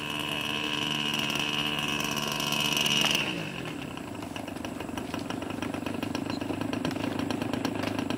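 A radio-controlled model airplane engine runs at high revs with a high-pitched whine. About three seconds in it is throttled back sharply and settles into a steady, rapidly ticking idle as the plane taxis.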